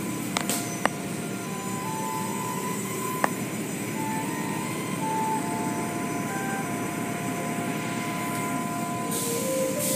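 Automatic car wash tunnel machinery running: a steady mechanical rumble with water spray, three sharp knocks in the first few seconds, and a burst of hissing spray near the end.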